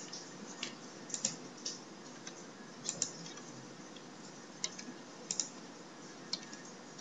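Sparse computer keyboard keystrokes and clicks: about a dozen single taps, a few of them in quick pairs, with pauses between, over a faint steady hiss.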